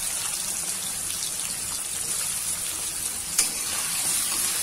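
Chicken livers sizzling in hot oil in a wok, a steady frying hiss. About three and a half seconds in, a metal spatula knocks against the wok as stirring begins.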